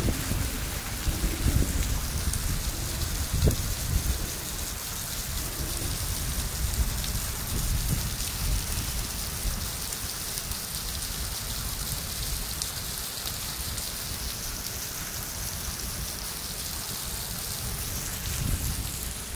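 Heavy rain pouring onto wet cobblestones and pavement, a steady hiss.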